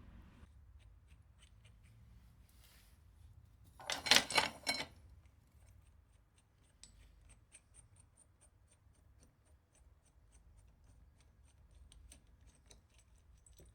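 Motorcycle chain breaker tool being worked by hand: a short clatter of metal strokes about four seconds in, then a run of faint small clicks.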